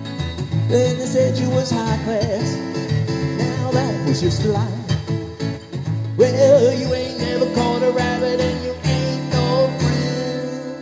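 Live rock-and-roll music with guitar playing over a full backing, the song's closing instrumental stretch.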